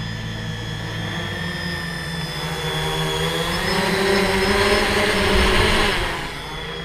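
Hexacopter's electric motors and propellers humming steadily as it hovers. The hum grows louder and slightly higher in pitch as the copter comes close overhead, about four to six seconds in, then falls back.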